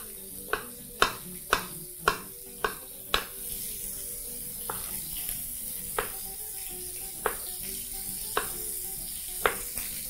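Knife slicing a red onion on a bamboo cutting board: sharp taps of the blade striking the board, about two a second for the first three seconds, then slower, about one a second. A steady sizzle of food frying runs underneath.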